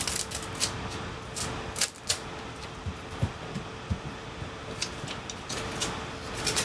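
Hands pressing a new battery's cells down into a MacBook Pro's aluminium case to set the adhesive. It comes through as scattered light clicks and rustles, with a faint steady hum underneath.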